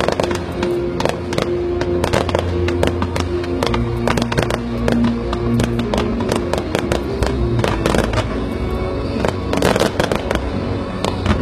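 Fireworks going off in a dense, irregular run of sharp bangs and crackles, over music with long held notes.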